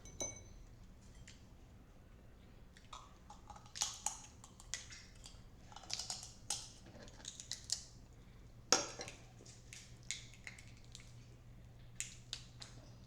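Cooked Dungeness crab shells being cracked and picked apart by hand, with chewing: irregular sharp cracks and clicks, the loudest crack near the nine-second mark.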